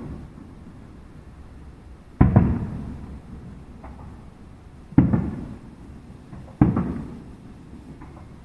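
Aerial firework shells bursting: three booms, about two, five and six and a half seconds in, each trailing off in a rumbling echo over about a second.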